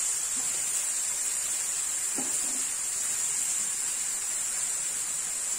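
Chopped onions sizzling as they shallow-fry in oil in a pan: a steady hiss.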